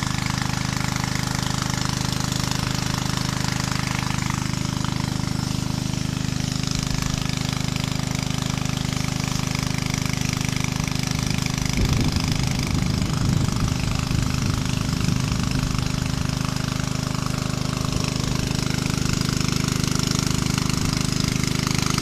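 Small engine of a power sprayer running steadily at a constant speed, driving the pump that feeds the spray hose for treating the coconut trees.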